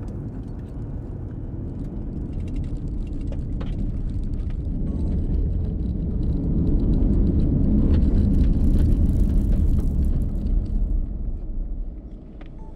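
A low rumble with scattered light ticks, swelling about halfway through and easing off near the end.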